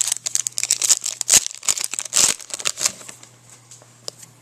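Foil trading-card pack wrapper crinkling in the hands, a dense run of crackles for about three seconds that then dies down to a few faint ticks.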